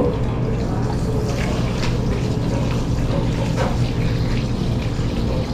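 Tap water running into a ceramic washbasin while hands are rubbed and rinsed under the stream, with small splashes, over a steady low hum.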